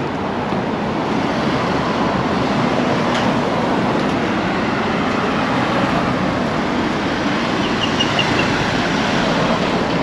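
Steady street traffic noise: an even rush of passing cars with no distinct engine note.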